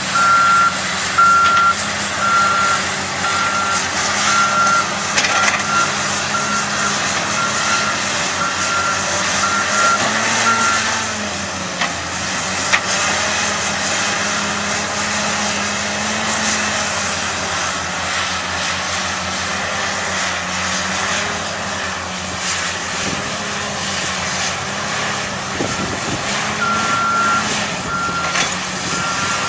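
Diesel engines of heavy earthmoving machines running under load, with a reversing alarm beeping at an even pace for about the first eleven seconds and starting again near the end.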